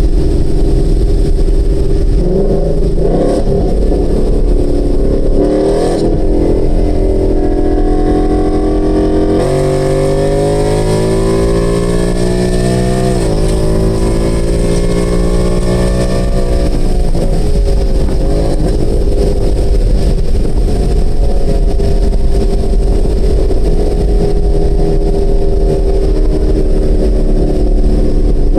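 2018 Ford Mustang GT's 5.0 Coyote V8 running through a free-flowing exhaust with Borla S-Type axle-back mufflers, pulling under acceleration. The pitch climbs from about a third of the way in, drops at an upshift, climbs again, then settles into a steady drone.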